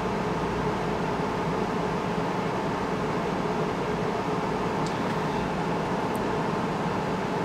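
Steady mechanical whir with a faint hum, with two faint light ticks about five and six seconds in.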